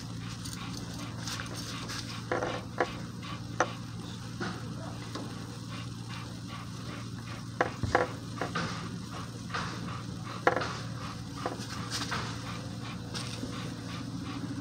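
Small pine-sap and charcoal fire starter burning with a soft sizzle and scattered crackles and pops, the sharpest about ten seconds in, over a steady low hum.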